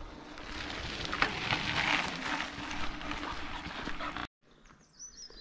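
Gravel crunching as a bicycle rides past on a gravel path, swelling to its loudest about two seconds in, mixed with a walker's footsteps on the gravel. The sound cuts off abruptly near the end.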